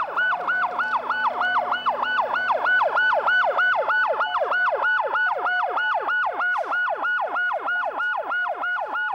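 Emergency vehicle siren on a fast yelp, its pitch sweeping up and down about four to five times a second, with a steadier lower tone coming and going beneath it.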